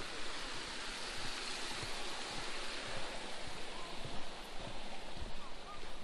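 Creek water rushing over rocks under a footbridge: a steady, even hiss. Faint irregular low thuds run beneath it.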